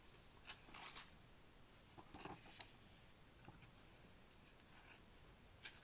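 Paper pages of a ring-bound planner being turned by hand: several faint, soft rustles, with one short sharp tick near the end.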